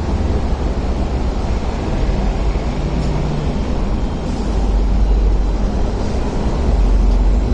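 A steady low rumble of vehicle noise heard from inside a Hong Kong tram standing at a stop. It swells about halfway through and stays louder towards the end.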